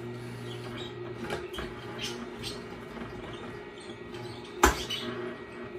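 Tribest Green Star Elite twin-gear juicer running with a steady low hum as its slow gears crush greens pushed down with the plunger, with scattered crackles and squeaks from the crushing. A single sharp knock comes about three-quarters of the way through.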